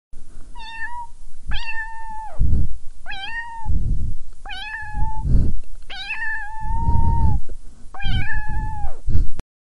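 A cat meowing six times, each call a held, mid-pitched meow, the longest about a second, some ending with a falling tail. Low rumbles sound between several of the calls, and the sound cuts off suddenly near the end.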